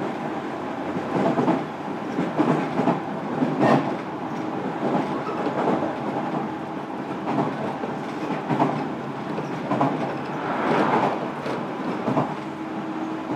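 JR Kyushu 305 series electric train running, heard from inside one of its motor cars: a steady rumble of wheels on track with irregular knocks and clatter. A steady hum comes in near the end.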